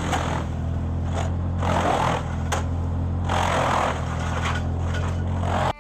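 ARB MAX F30 robotic tracked wood chipper running steadily at working speed while its feed wheels pull in a whole tree, with surges of chipping noise about every second and a sharp crack about halfway through.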